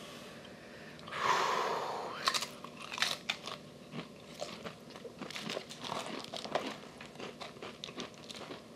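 Crunching and chewing of the Paqui One Chip Challenge tortilla chip: a breathy hiss about a second in, then a dense run of short, sharp crunches.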